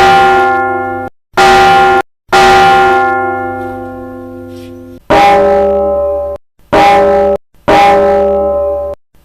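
Church bells of the Old Cathedral of Santa María struck one stroke at a time, each stroke ringing with a long decay: one bell sounds three times, then from about five seconds in a different-toned bell sounds four times. Several strokes are cut off abruptly into silence.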